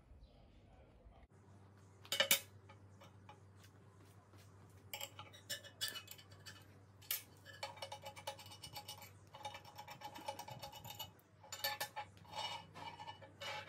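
Steel flat bars knocking down onto a steel fixture table, one loud clank about two seconds in, then a run of small metallic clicks and clinks as small bolts joining the two bars are turned with a small wrench.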